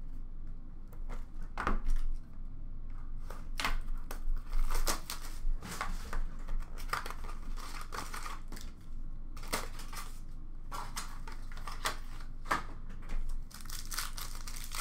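Hands handling a box and packs of hockey trading cards: irregular rustling, crinkling of a pack wrapper being torn open, and light clicks of cardboard and cards being handled.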